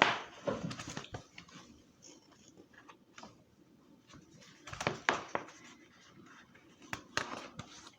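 Soft paper rustles and small taps in three short clusters, with quiet room tone between: a picture book's pages being handled and turned.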